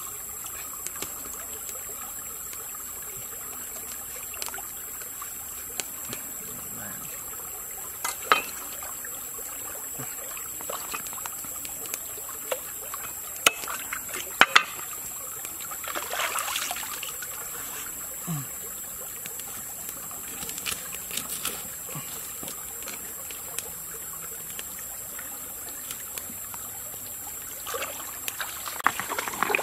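Shallow stream trickling steadily over rocks, with a few sharp knocks from a cleaver chopping on a wooden board, the loudest a little before the middle.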